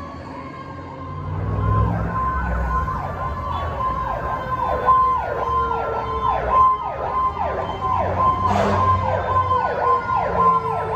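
Fire engine siren sounding on an emergency response: quick falling yelp sweeps, about two a second, over a steady tone and a lower wail that slowly slides down in pitch. A short horn blast about eight and a half seconds in.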